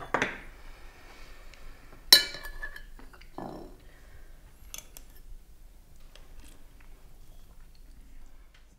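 Spoons clinking and scraping against ceramic soup plates as two people eat, with one sharp ringing clink about two seconds in and lighter scattered taps after it.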